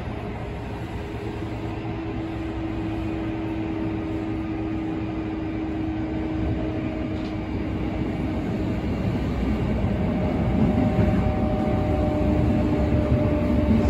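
Sanyo 6000 series electric train running, heard inside the passenger car: the whine of its Mitsubishi IGBT inverter and traction motors over a steady rumble of wheels on rail. A steady inverter tone fades about six seconds in, higher tones come in after it, and the rumble grows louder toward the end.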